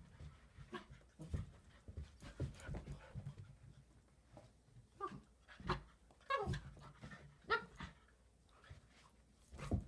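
A puppy and a grown dog play-fighting: short, irregular bursts of dog play noises, including a wavering whine, mixed with scuffling on the floor.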